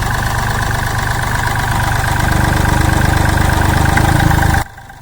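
Mahindra Bolero Power Plus three-cylinder diesel engine idling steadily after its injectors have been re-set. It gets louder about two seconds in and drops off sharply near the end.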